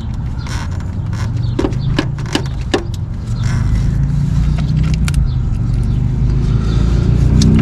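Scattered metallic clinks and knocks as an alternator is worked into its mounting brackets, over a steady low hum that grows louder after a few seconds.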